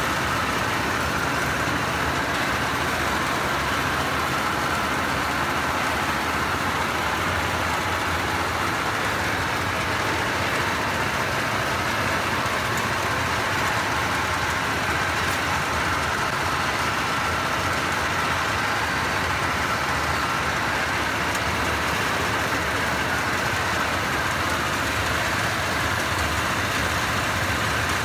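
Rice threshing machine running steadily, its small single-cylinder engine driving the threshing drum: an even engine drone with a higher steady whine over it.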